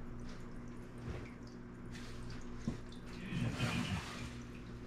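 Aquarium filter trickling over a steady hum. Clothing rustles in a bag about three seconds in.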